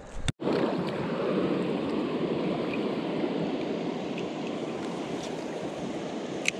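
Shallow creek water running steadily over rocks, starting abruptly a moment in, with one sharp click near the end.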